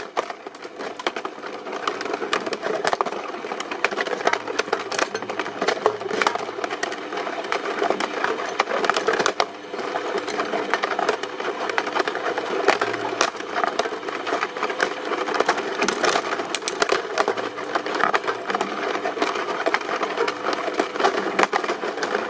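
Industrial shredding machine running and grinding up material: a dense, continuous crackle of snapping and crunching over the machine's hum, dipping briefly near the middle.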